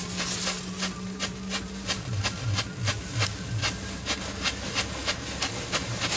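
Small Category 1 ground fireworks burning, crackling with sharp pops, several a second, over a steady hiss of spraying sparks.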